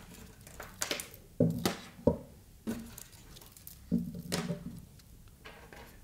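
Plastic PC case fans being handled and set down onto an AIO cooler's radiator: several scattered light knocks and clatters.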